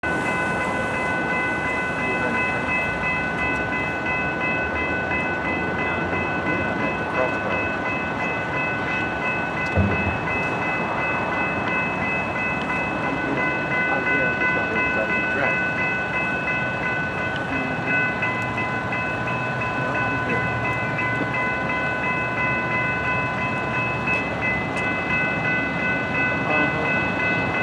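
Railroad crossing bell ringing without a break while the crossing signals are active, over a steady rumble of rail and street noise. A single low thump about ten seconds in.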